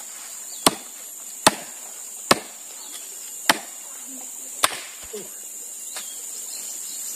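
Firewood being split by chopping, a sharp chop of a blade into wood roughly every second, with fainter strokes toward the end.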